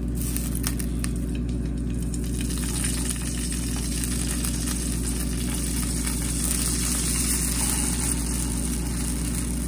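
Vegetable stock poured into a hot frying pan, sizzling and spitting as it meets the leftover oil around the browned seitan, over a steady low hum.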